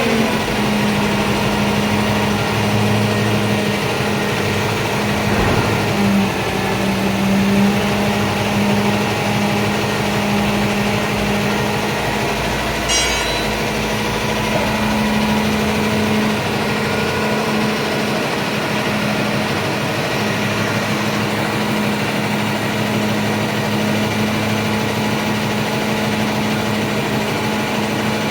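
Vehicle engine running at a steady fast idle, with a short metallic clatter about halfway through.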